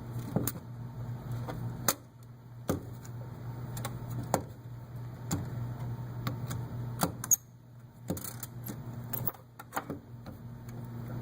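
Scattered plastic clicks and knocks, a dozen or so at irregular intervals, as the blue plastic caddy of a SATA hard drive is flexed and its silver tabs are worked out of the holes in the drive's sides.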